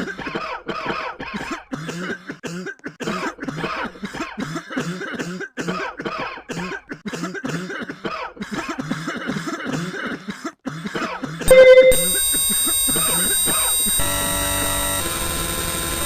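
A person coughing over and over in a quick, unbroken run of short coughs. About eleven and a half seconds in, this cuts to a sudden loud tone, followed by steady electronic tones over a hiss that change pitch a couple of times.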